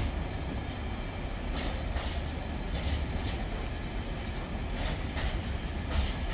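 Freight train of Freightliner bogie hopper wagons rolling past close by: a steady low rumble, with short wheel clatters coming in pairs every second or two as the bogies go by.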